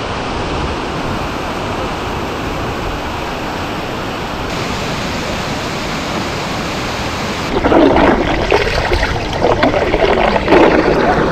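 White water rushing out of a small dam's outlet into a rocky river, a steady rushing noise. About three-quarters of the way through it turns louder and choppier, with uneven splashing and churning.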